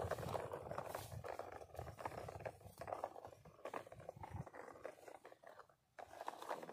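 Faint scraping of a plastic toy dump truck's wheels as it is pushed by hand over dry, sandy dirt. The sound cuts out briefly near the end.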